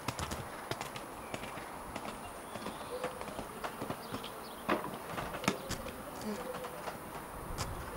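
A show-jumping horse's hoofbeats on sand footing as it canters: irregular dull thuds and knocks, a few of them sharper and louder.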